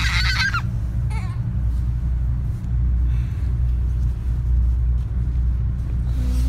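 Steady low rumble of a moving car heard inside the cabin. A baby gives a short high squeal in the first half second.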